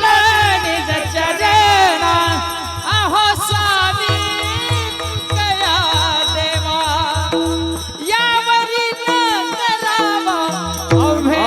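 Devotional kirtan singing: a man's voice sings a highly ornamented melody over steady held accompanying notes and a low, rhythmic drum beat. The drum drops out for a few seconds near the end.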